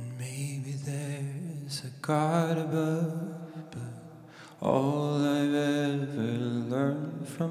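A man singing slow, long-held notes in phrases, with electric keyboard accompaniment.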